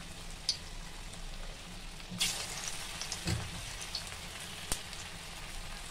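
Lauki and besan kofta balls frying in hot oil in a steel kadhai on a low flame, a steady sizzle. About two seconds in, another kofta drops into the oil and the sizzle flares up loudly, then settles; a soft knock follows a second later.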